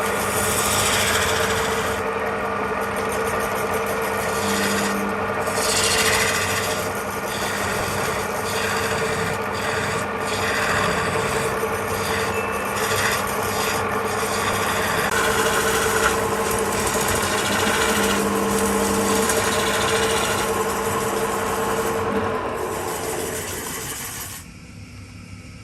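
Wood lathe running with a steady motor hum while a tool scrapes against the spinning wood, ending near the end as the cutting and hum stop.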